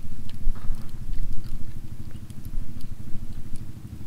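An engine running steadily in the background, a low even hum, with scattered light clicks of a fork on a plate and chewing over it.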